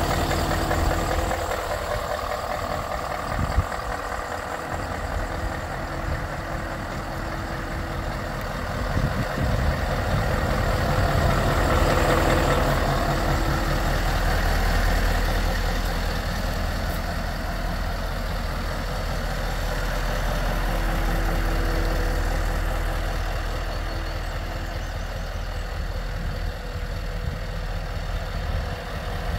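Scania S520's 16-litre V8 diesel engine idling steadily, growing a little louder for a few seconds near the middle.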